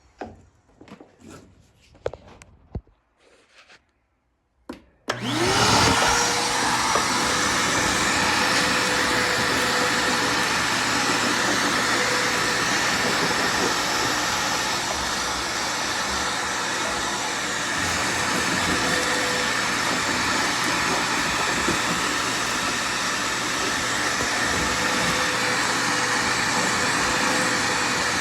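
A vacuum cleaner switches on about five seconds in, its motor quickly spinning up to a steady whine over a loud, even rush of air that runs on unchanged. Before it starts there are only a few faint knocks and clicks.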